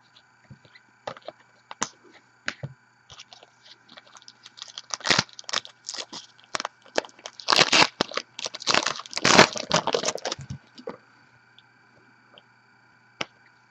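A foil trading card pack torn open and its wrapper crinkling: scattered small clicks, then a dense run of crackling for about five seconds in the middle, then a single click near the end.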